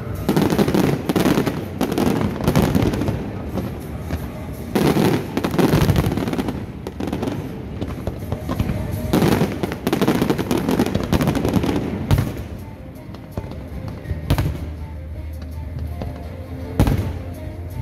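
Fireworks display: a dense run of overlapping bangs and crackling for about twelve seconds, thinning near the end to a few single sharp reports.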